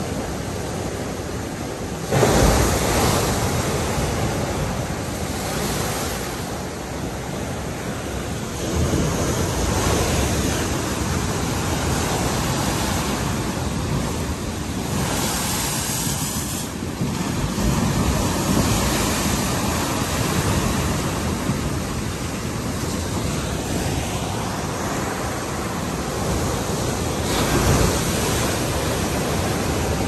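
Heavy surf at a king tide breaking and washing against a concrete seawall, a continuous wash of waves with repeated surges as each one crashes in; the loudest crash comes about two seconds in, another near the end.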